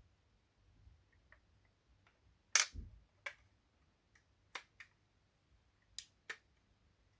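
Sharp clicks and taps from handling a 1:24 diecast model car, with one louder knock about two and a half seconds in, then a few lighter clicks, several in quick pairs.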